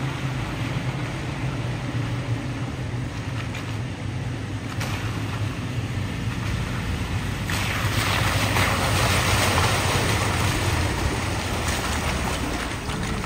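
A Toyota 4x4's engine running with a steady low rumble, while a louder rushing noise builds about seven seconds in and eases again near the end.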